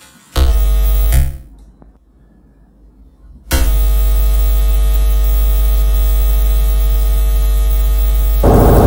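A loud electronic buzzing drone, like amplified mains hum, sounds for about a second and cuts out. It comes back about three and a half seconds in and holds steady, turning louder and rougher near the end.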